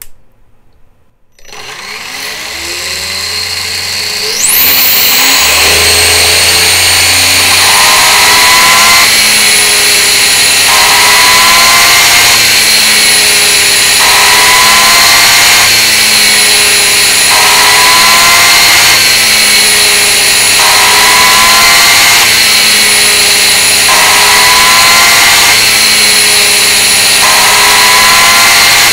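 RC car's brushless motor and drivetrain spinning the rollers of a chassis dyno: a loud whine that winds up over the first few seconds, then dips in pitch and recovers about every 1.7 seconds as the dyno cycles its load to simulate an oval race.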